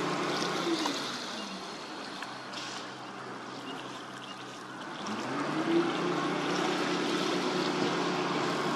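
Tug's diesel engine throttling back about a second in and running low, then revving up again about five seconds in and holding steady under load as it tows the grounded schooner off on a line.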